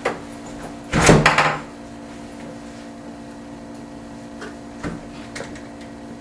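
A door being handled: a click at the start, then a loud rattling clatter of several knocks about a second in, followed by a few faint taps.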